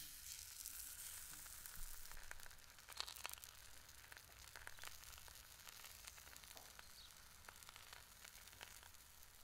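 Buckwheat pancake frying in a hot pan on a wood stove: a faint, steady sizzle with scattered small crackles and pops, a little louder in the first couple of seconds before settling.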